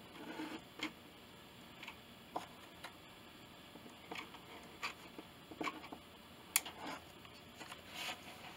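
Faint, irregular small clicks and taps from hands working a hot glue gun and pressing a sign down onto a crocheted wreath, with the sharpest click about six and a half seconds in.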